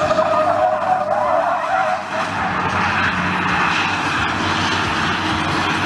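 A semi-truck tractor unit drifting on tarmac, its rear tyres squealing and scrubbing while the diesel engine runs under load. The squeal sags slightly in pitch over the first two seconds, then turns into a rougher, hissing scrub.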